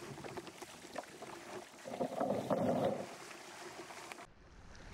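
Shallow creek water rushing and sloshing around a kayak being pushed and then dragged up a rocky riffle, with small knocks throughout and a louder stretch of splashing about two seconds in. The sound cuts off abruptly near the end.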